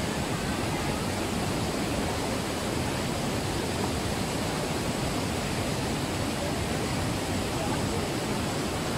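Cascading water rushing steadily, an even hiss that does not change in level.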